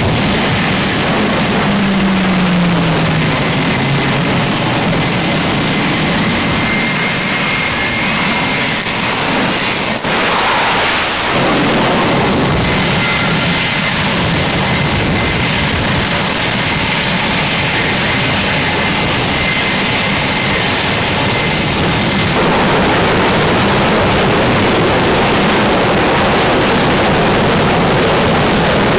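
Jet engines running on an aircraft carrier flight deck, with an EA-6B Prowler in the shots: a loud, steady rush with a high whine over it. A short falling tone comes about two seconds in, and the sound changes abruptly about 11 and 22 seconds in.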